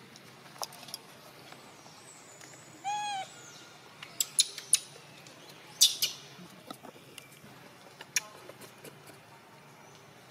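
A monkey gives one short coo, rising then falling in pitch, about three seconds in. It is followed by several sharp clicks and knocks, the loudest about six seconds in.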